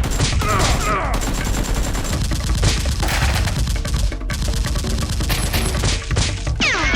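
Rapid bursts of automatic gunfire, shots coming in quick succession.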